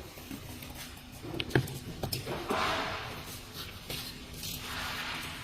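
Handling noises while a battery tester is readied on a lithium-ion battery module: a sharp click about a second and a half in, then rustling and scraping twice.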